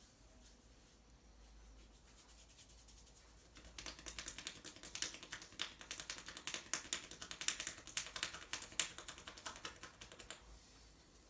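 A fast run of light percussive taps from massaging hands, many taps a second, starting about four seconds in and stopping shortly before the end.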